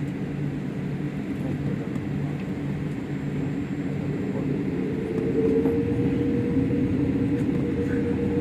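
Jet airliner engines and cabin hum heard from inside the cabin while taxiing: a steady drone that grows louder about five seconds in as a higher whine comes in and edges upward.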